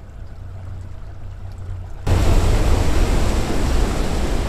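Low hum of a small boat's outboard motor. About two seconds in it gives way abruptly to a loud, steady rush of wind on the microphone and water spray as the boat runs at speed, with the motor droning underneath.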